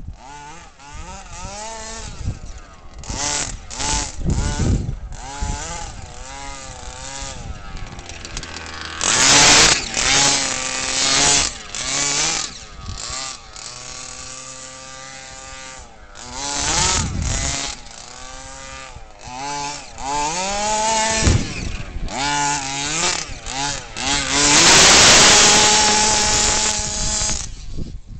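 23cc two-stroke gas engine of a Smartech Bigfoot RC monster truck, fitted with a DDM tuned pipe, revving up and down again and again as the truck is driven. Its loudest full-throttle runs come about nine seconds in and for a few seconds near the end, with a steadier, lower stretch in between.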